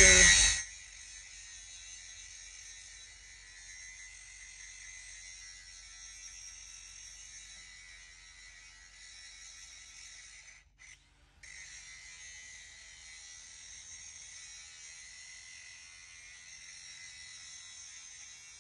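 Angle grinder grinding the sides off a steel mounting bracket: loud for the first half second, then a faint steady high whine. The sound cuts out for under a second about eleven seconds in.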